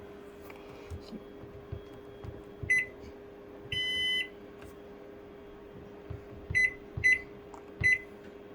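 Microwave oven keypad beeping as its buttons are pressed: a short beep about three seconds in, a longer beep around four seconds, then three more short beeps near the end, each with a soft tap of the button. A steady low hum runs underneath.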